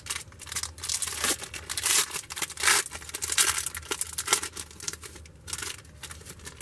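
A trading-card pack wrapper being torn open and crinkled by hand, in a run of irregular rustles and rips that fade near the end.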